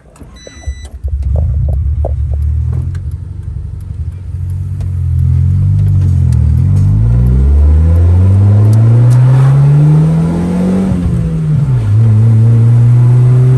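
A car engine comes up loud about a second in and runs unevenly at low revs, then climbs steadily in pitch as the car accelerates, drops sharply at a gear change near the end, and starts climbing again.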